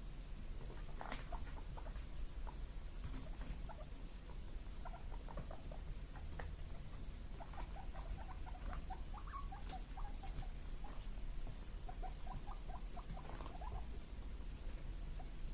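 Guinea pigs making soft, short squeaks: a few scattered ones at first, then two quick runs of them about halfway through and again near the end. A steady low hum lies underneath.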